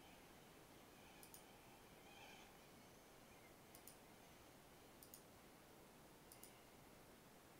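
Near silence with four faint computer mouse clicks spread out, each a quick double tick of press and release, over a low steady hiss.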